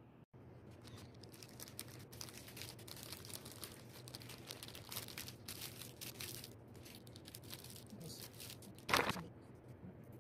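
Crinkly wrapper being handled and crumpled around a Ferrero Rocher chocolate, a continuous run of small crackles, with one louder crackle about nine seconds in.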